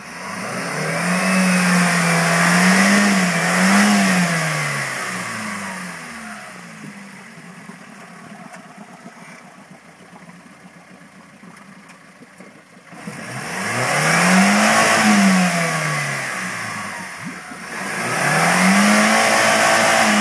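Suzuki Sierra Samurai's engine revving hard while the 4x4 climbs through deep mud on its rear wheels alone, its front axle broken. It rises in a long surge near the start, drops back to a quieter idle for several seconds, then revs up again about 13 s in and once more near the end.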